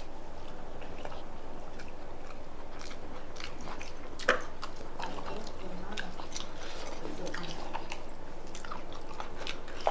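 Eating sounds: chewing with scattered small wet clicks and smacks, and one sharper click about four seconds in.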